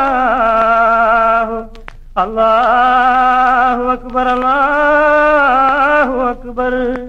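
Wordless singing in a Mappila song: long held notes with a wavering vibrato and small slides, in about four phrases with a short break about two seconds in.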